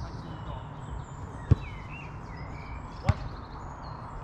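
Two sharp thuds of a football being kicked, about a second and a half apart, the first the louder, over steady outdoor background noise.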